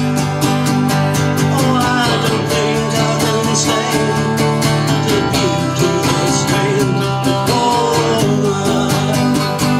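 Country song played on acoustic guitars: steady strumming, with a wavering melody line over it from about two seconds in.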